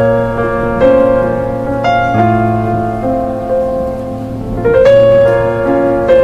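Background piano music: slow chords struck every second or two and left to ring.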